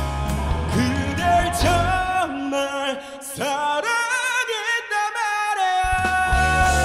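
A ballad sung over band accompaniment, with long held notes that waver in pitch. The bass drops out for a few seconds in the middle, then comes back.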